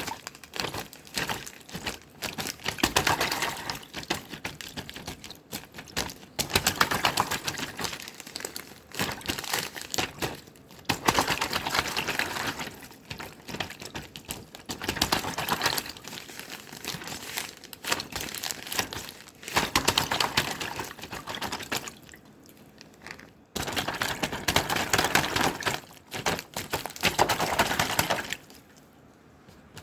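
Slime being squeezed and worked by hand, in repeated wet, crackling squishing bouts of one to three seconds each with short pauses between.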